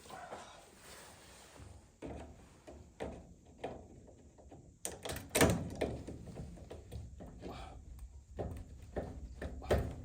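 Irregular knocks, clunks and rustles of furnace parts and hoses being handled, the loudest a sharp knock about five and a half seconds in.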